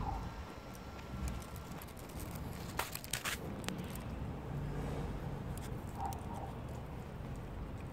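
A cat chewing wet cat food, with short wet smacking clicks, a cluster of them about three seconds in, over a steady low background rumble.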